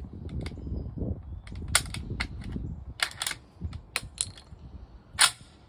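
A series of short sharp metallic clicks and clacks from an M1 Garand rifle being handled while its trouble with old ammunition is sorted out. One much louder sharp crack comes about five seconds in.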